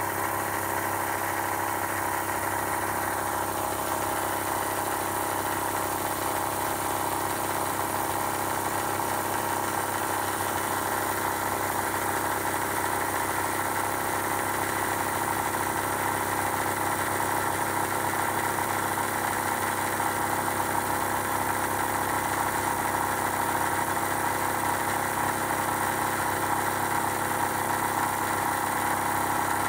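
RIX SA-3E oil-less electric scuba compressor running steadily under load, pumping up pressure against the back-pressure regulator, which holds the air back until 1800 psi.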